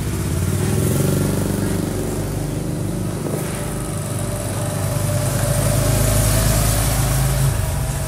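Motor scooter engine running on a street, a steady low hum that drops away about seven and a half seconds in.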